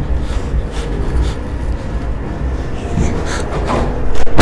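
A few short knocks over a low rumble, then a loud bang near the end.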